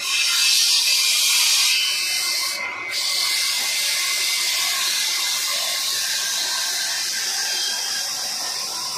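Turned wooden table leg spinning on a wood lathe while being sanded by hand: a steady abrasive hiss, which eases for a moment about two and a half seconds in and then resumes.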